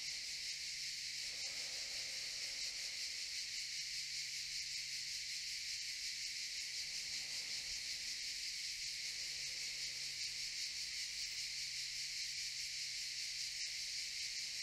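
Cicadas droning in a steady, high, fast-pulsing buzz.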